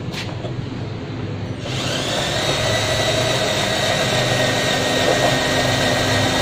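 Cordless drill running at a steady speed, turning the spindle of a semi-automatic spiral potato cutter as it cuts a potato into one long spiral strand. The motor's steady whine starts about a second and a half in.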